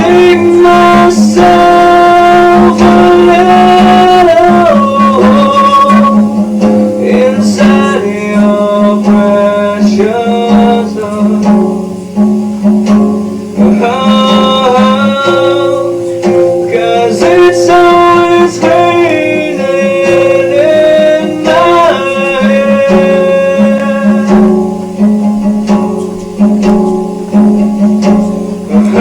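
Blues music: guitar with a melody line that slides up and down in pitch over a steady low note.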